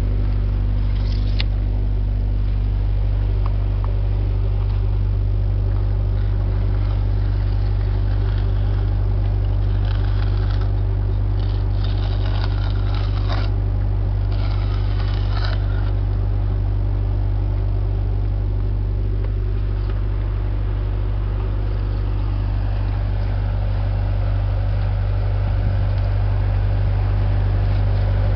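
Core-drilling rig machinery running steadily as a constant low engine drone. Over it come a brief click about a second in and a stretch of metallic scraping and clinking near the middle, as drill core is pushed along a metal core tray.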